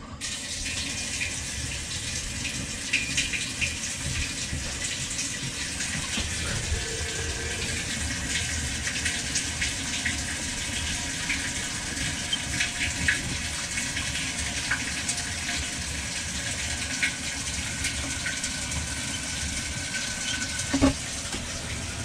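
Whirlpool washing machine filling with water at the start of a wash cycle: a steady rush of water into the tub, with a few faint clicks and one knock near the end.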